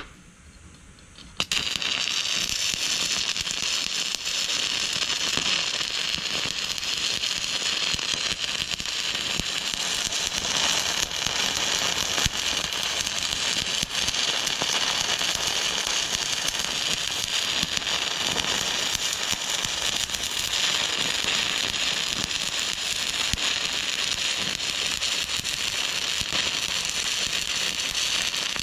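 Stick-welding arc struck about a second and a half in, then crackling steadily as the electrode burns along the weld.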